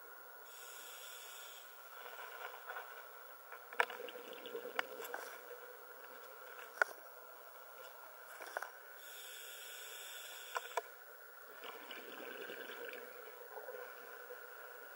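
A scuba diver breathing through a regulator, heard through the underwater camera housing. There are two hissing inhalations about a second long, one near the start and one just after the middle, each followed by bubbly exhaled air. A few sharp clicks fall in between.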